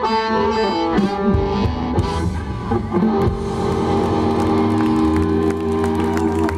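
Live blues band playing: electric guitar, harmonica, bass and drums. Drum hits run through the first few seconds, then the band holds a long, steady chord from about halfway through.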